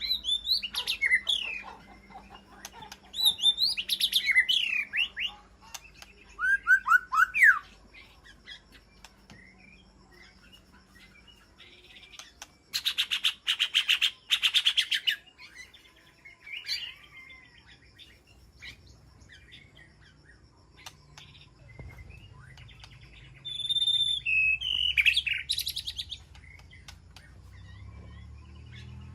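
White-rumped shama singing: bursts of varied, sliding whistled phrases separated by pauses, with a fast rattling series about halfway through.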